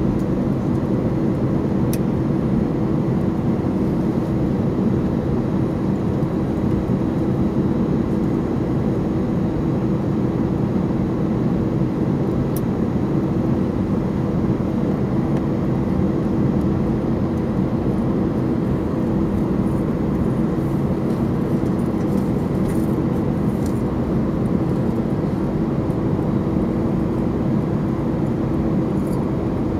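Cabin noise inside an Airbus A319 taxiing: a steady engine drone with one held tone over it, even in level throughout.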